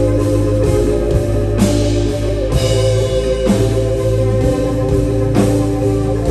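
Live band music at a rock concert: sustained organ-like and guitar chords over a steady bass, with a bright crash about every two seconds.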